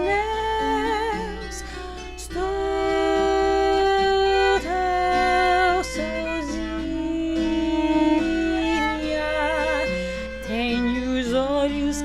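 Slow Brazilian song performed live by a small acoustic trio: a woman's voice and a bowed string instrument hold long notes with vibrato over plucked guitar accompaniment.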